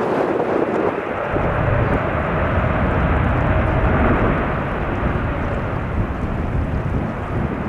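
Boeing 777-300ER's GE90 jet engines running loud as the airliner lands, with a deep rumble that builds about a second in and a faint engine whine above the roar.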